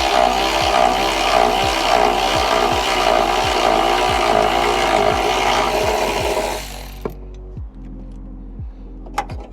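A power tool runs loudly and stops about seven seconds in, leaving background music with a steady beat and a couple of sharp clicks near the end.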